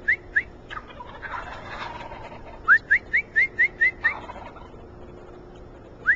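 Bird calls: a series of short, clear rising whistled notes, about five a second. There are two near the start, a louder run of seven near the middle and another run at the very end, with a rougher, noisy stretch about a second in.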